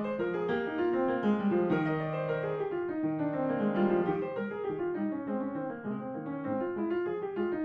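Background piano music: a quick-moving melody with runs of notes over a lower accompaniment.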